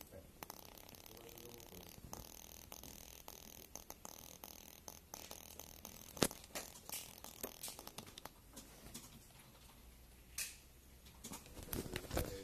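Quiet room tone with scattered small clicks and taps, and a faint voice about a second in.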